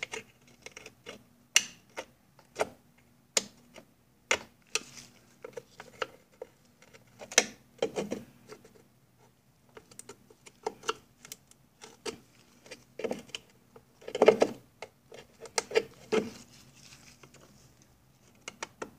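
Screwdriver and metal spring clips clicking, scraping and knocking irregularly against the outboard's front panel tabs as the rusted retaining clips are pushed in and resist coming out. A faint steady low hum runs underneath.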